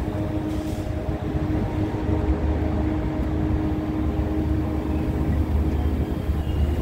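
Metrolink bilevel passenger coaches rolling slowly past along the platform: a steady rumble of wheels on rail with a steady low hum.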